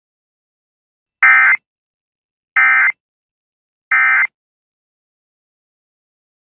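Emergency Alert System End-of-Message signal: three short, identical bursts of digital data tones about 1.3 seconds apart, marking the end of the alert.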